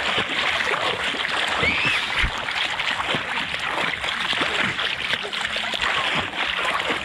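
Water splashing steadily as a person swims and floats about in motorcycle riding gear.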